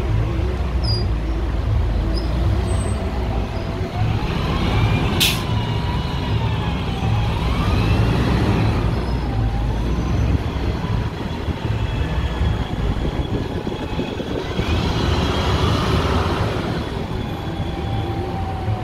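City street traffic: a steady low rumble of passing vehicles. There is a brief sharp high sound about five seconds in, and faint rising and falling tones in the middle.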